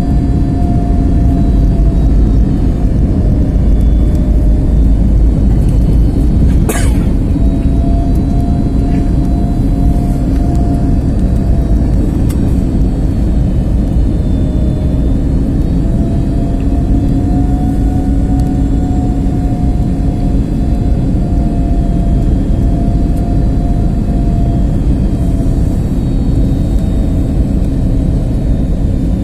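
Steady airliner cabin noise during descent: a low rumble with a steady engine hum and a fainter tone that wavers slowly up and down in pitch. A single sharp click about seven seconds in.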